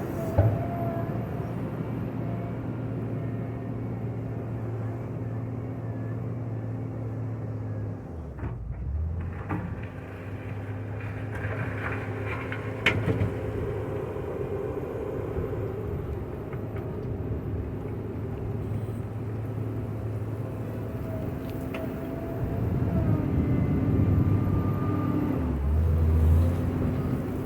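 JCB 426ZX wheel loader's diesel engine running under load while cutting gravel, its note dropping off briefly about eight seconds in and climbing louder near the end, with a couple of sharp knocks.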